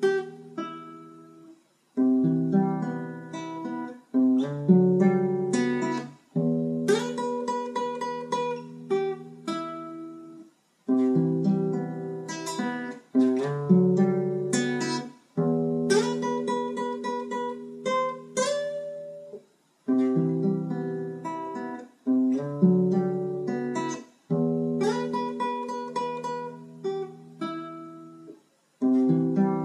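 Acoustic guitar strumming chords, a new chord struck about every two seconds and left to ring down, with a few short breaks of silence between phrases: the instrumental break of a song.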